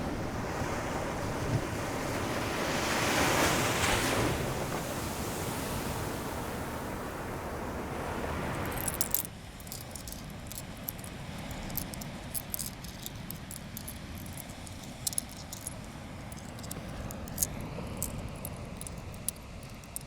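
Ocean surf washing onto the beach, swelling to a peak a few seconds in and then easing off. About nine seconds in, the sound cuts suddenly to a quieter background scattered with many short high-pitched ticks.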